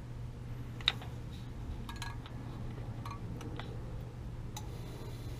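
A few sharp clicks from a Resideo gas control valve on a gas water heater as its knob is worked to light the pilot, the first and loudest about a second in, the rest spread out.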